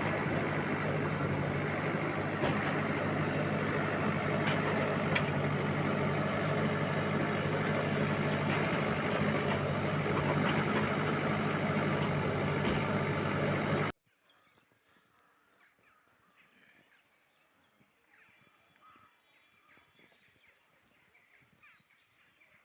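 Bulldozer diesel engine running steadily with a low hum. It cuts off suddenly about two-thirds of the way through, leaving near silence with faint scattered sounds.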